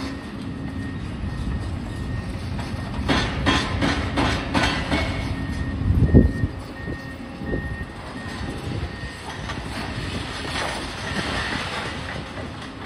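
Demolition excavators at work: diesel engines running steadily under clanks and knocks of concrete rubble and steel being broken and moved. A single heavy thud comes about six seconds in. A machine's warning beeper sounds in a quick run of short high beeps for a few seconds around the middle.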